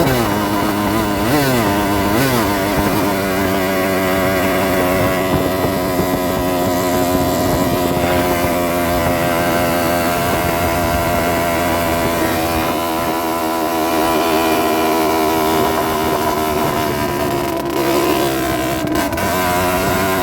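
Rieju Drac 50's 50cc two-stroke engine running while riding, the revs dropping sharply at the start with a couple of quick dips and pick-ups, then holding a steady, wavering pitch, with another dip and rise near the end.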